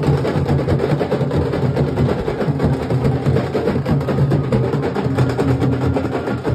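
Nashik dhol band drumming: dense, continuous, loud beating of large barrel drums.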